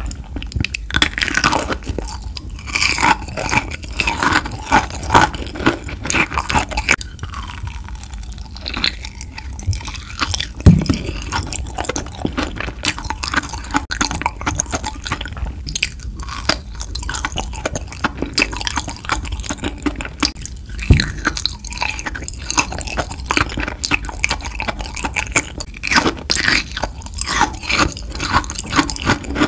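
Close-miked chewing of kohakutou, Japanese crystal jelly candy: its sugar-crystal crust cracks and crunches over the soft agar jelly inside, in a steady run of crisp crackles.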